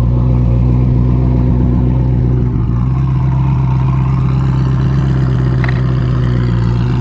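Ferrari F40's twin-turbocharged V8 running at low revs as the car creeps past and pulls slowly away, a steady low drone that rises slightly in pitch about three seconds in.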